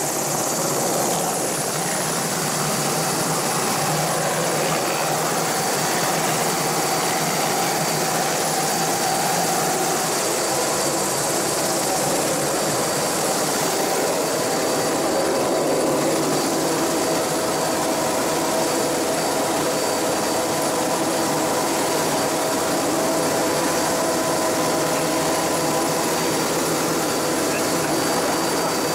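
Helicopter's turbine engine and rotor running steadily, a constant high whine over a loud rushing noise.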